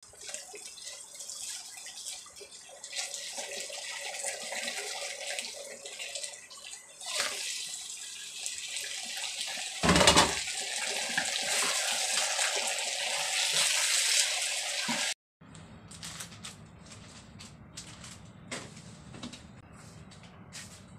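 Sauce sizzling in a hot pan as it is stirred with a wooden spatula, growing louder about seven seconds in. A loud burst about ten seconds in as the fried chicken feet go into the sauce, then a louder sizzle that cuts off suddenly at about fifteen seconds. After that, a much quieter room with a few light ticks.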